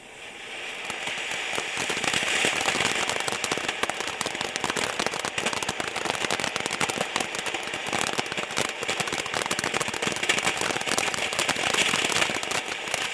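Firework fountain burning: a steady spraying hiss packed with dense, rapid crackles, building up over the first couple of seconds and then going on evenly.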